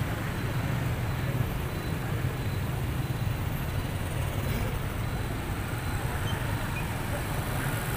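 Street traffic: cars and motorbikes driving past, a steady rumble without breaks.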